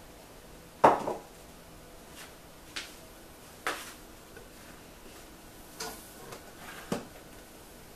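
Several sharp plastic clicks and knocks at irregular intervals, the loudest about a second in, as the Melitta CI Touch coffee machine is handled and its height-adjustable coffee outlet is slid into position.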